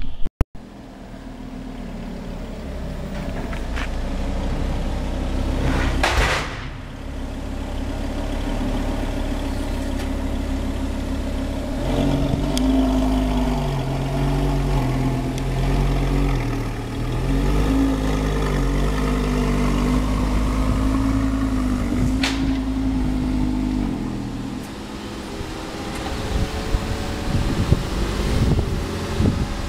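Lamborghini Gallardo LP560-4's 5.2-litre V10 engine running, its pitch shifting up and down through the middle stretch, with two brief noisy rushes along the way. Near the end the sound turns rougher and uneven as the car pulls forward.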